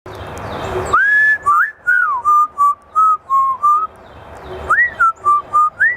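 African grey parrot whistling a tune in clear, pure notes: a long rising note, then a run of short notes, a pause, and the phrase starting again near the end.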